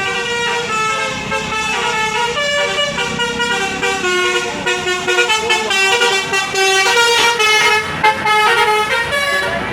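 Indonesian 'telolet basuri' multi-tone bus horn playing a melody: a string of held horn notes stepping up and down in pitch.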